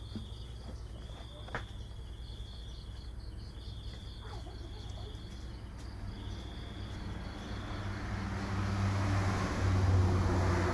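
Background insects, crickets by their sound, trilling in repeated high bursts of about a second and a half each. In the second half a passing vehicle's rumble and hiss builds up, loudest near the end.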